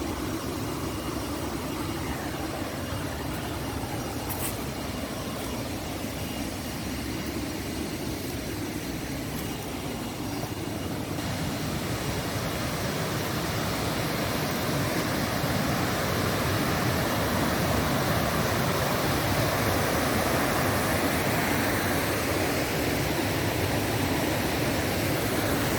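Waterfall and its stream rushing with a steady, even noise, growing a little louder about halfway through. The flow is swollen and foamy, which the speaker puts down to rain in recent days.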